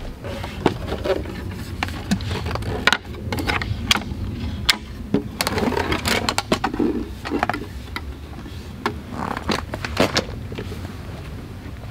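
Wooden slats of a walnut-and-oak roll-up camp table clacking and knocking against each other as it is handled and unrolled flat, in a scatter of short sharp knocks.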